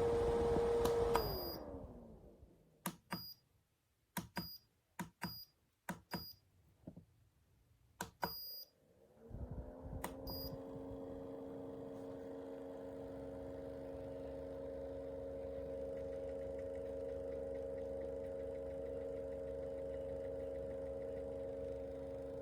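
Portable rechargeable fan switched off, its motor hum sliding down in pitch as the blades spin down. Then comes a series of short button clicks, each with a brief high beep. About nine seconds in, the fan starts again and spins up to a steady hum.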